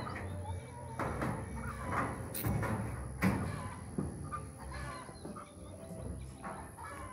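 Chickens clucking, with a few sharp knocks of a hammer nailing corrugated metal roofing sheets; the loudest knock comes a little over three seconds in.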